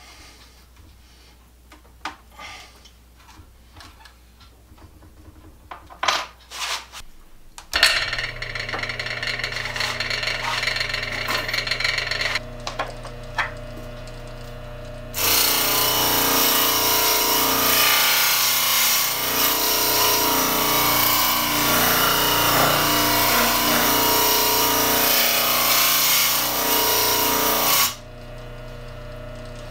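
Scattered clicks and taps of handling, then an electric motor arbor starts about eight seconds in and runs with a steady hum. From about fifteen seconds a loud grinding as a workpiece is held against the spinning abrasive wheel, stopping a couple of seconds before the end while the motor keeps running.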